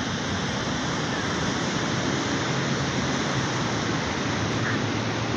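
Steady rush of ocean surf breaking on a sandy beach.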